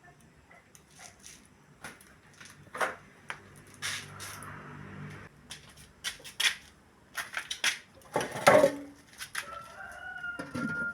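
Chickens clucking amid scattered sharp clicks and knocks, with a rooster crowing in one long held call near the end.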